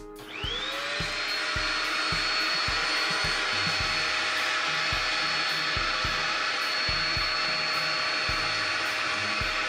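The vacuum motor of a small cyclone dust collector starts up, its whine rising over the first second, then runs steadily with a loud rush of air as the hose nozzle sucks up sawdust.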